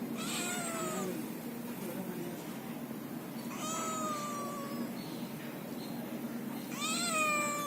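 Kitten meowing three times, each a high-pitched meow about a second long that slides slightly down in pitch.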